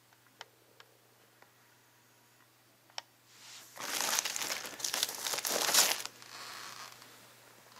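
Plastic packaging bag crinkling and rustling as it is pulled off a computer monitor by hand. It is loudest for about two seconds past the middle, after a few faint clicks.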